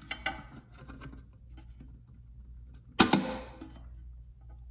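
A plastic float rod snapping out of the clip on a toilet fill valve's arm: a few light plastic clicks from fingers working the parts, then one sharp snap about three seconds in as the rod pops free.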